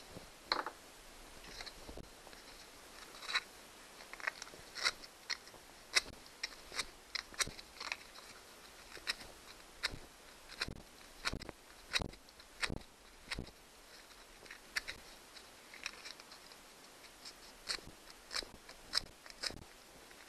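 Irregular small clicks and taps of wire terminals and connectors being handled and worked apart on an outboard motor's electrical wiring, at times a few a second.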